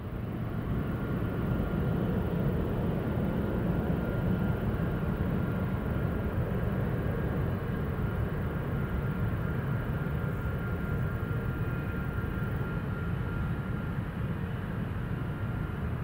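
Boeing 767-300ER's twin jet engines running steadily as the airliner lines up on the runway for takeoff: a low rumble with a thin steady whine above it, neither rising nor falling.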